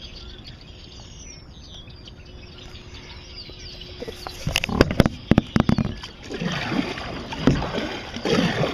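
Birds chirping over calm water, then from about four and a half seconds in, irregular kayak paddle strokes with splashes and sharp knocks.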